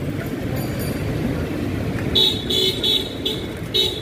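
A vehicle horn honking in about five short toots in quick succession, starting about halfway through, over steady street traffic noise. The driver is honking to get past a rider who has already moved aside.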